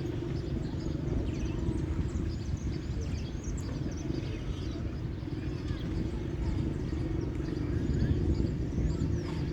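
Outdoor lagoon-side ambience: a steady low rumble with faint bird chirps over it.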